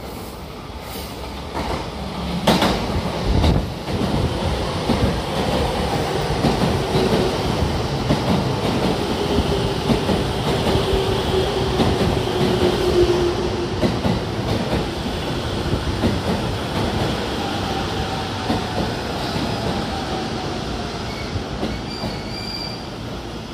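JR Chuo-Sobu Line local commuter train pulling into the platform and braking to a stop. It comes in with a few sharp knocks from the wheels over the rails, then a whine that falls slowly in pitch as it slows, and a brief high squeal near the end.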